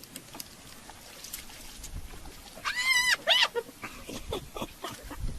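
Cape buffalo calf crying in distress while hyenas eat it alive: two short, high, arching cries about three seconds in, over faint scattered clicks.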